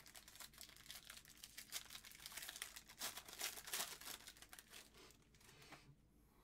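Trading card pack wrapper crinkling and tearing as it is opened: faint, crackly rustling that thins out near the end.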